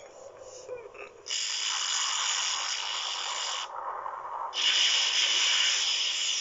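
Animated-film sound effect: a hissing rush of noise starts about a second in, breaks off briefly past the middle, and comes back louder as snow blasts upward around a character bursting out of it.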